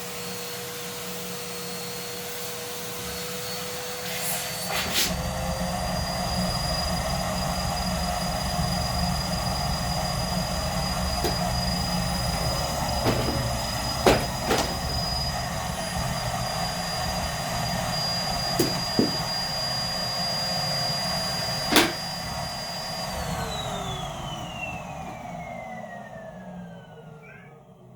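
Numatic Hetty canister vacuum cleaner running with a steady motor whine, which steps up slightly in pitch and level about five seconds in, with a few sharp knocks against the nozzle. Near the end it is switched off and winds down, its whine falling steadily in pitch as it fades.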